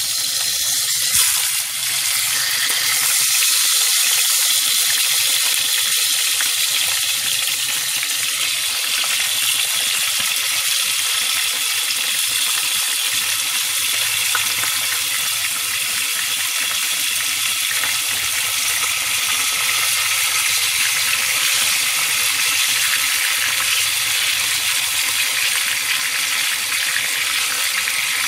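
Whole tilapia frying in hot oil in a shallow pan: a loud, steady sizzle, with a brief louder crackle about a second in.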